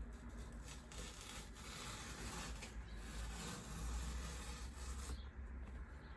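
The packaging of a MacBook Pro box rubbing and rustling as it is handled and unwrapped. It is a steady scratchy rustle that stops about five seconds in.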